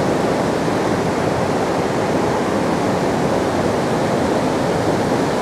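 Steady rushing of flowing river water, an even, unbroken hiss.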